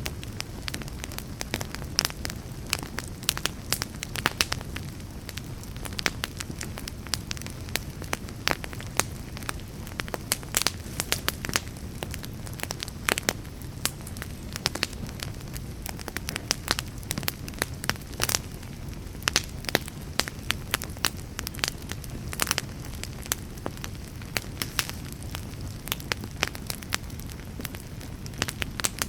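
Wood fire burning steadily, with frequent irregular sharp crackles and pops over a low rumble of the flames.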